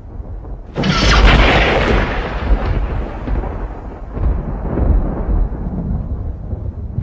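Thunder: a sudden crack about a second in, followed by a long rolling rumble that fades over several seconds.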